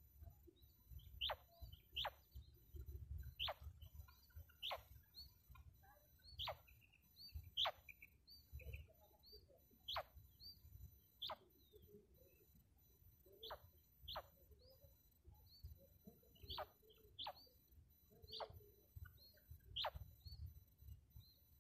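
Female quail calling: short, sharp single notes, each quickly falling in pitch, repeated every second or so and often in close pairs.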